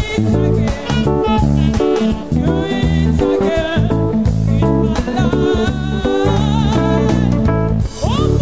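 Band music with a moving bass line, drums and guitar, and a wavering lead melody over it.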